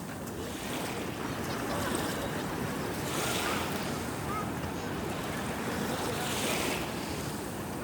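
Sea waves washing onto the shore, a steady rush of surf with a wave surging in about three seconds in and another near six and a half seconds.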